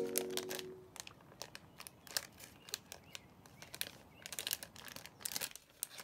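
Plastic packaging crinkling and crackling as it is handled, in scattered small clicks and rustles, while a music note dies away in the first second.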